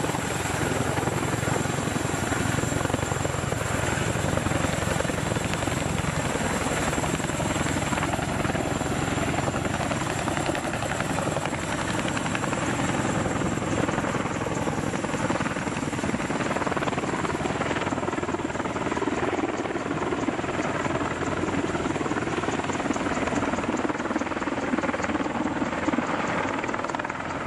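Boeing CH-47 Chinook tandem-rotor helicopters hovering and lifting off: loud, steady rotor chop mixed with the running of their twin turboshaft engines.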